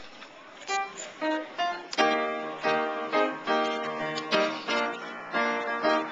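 Upright piano playing: a few single notes at first, then from about two seconds in a run of struck chords, each ringing on before the next.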